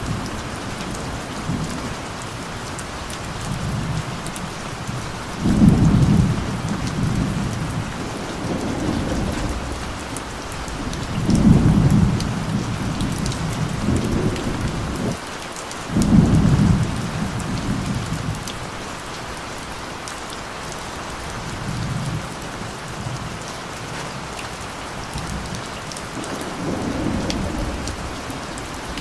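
Steady rain with thunder rolling repeatedly as low rumbles that swell and fade. The three loudest rolls start about five, eleven and sixteen seconds in, with weaker ones between.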